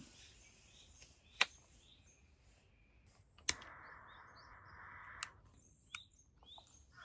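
Small birds chirping in short, repeated calls, with a few sharp clicks, two of them louder than the birds.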